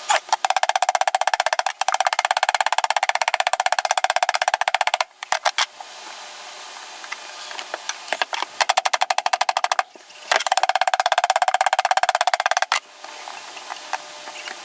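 MIG welder arcing on a steel floor panel in several spells of fast, even crackle, the longest about five seconds. The shielding gas is not turned on, so the welds aren't sticking.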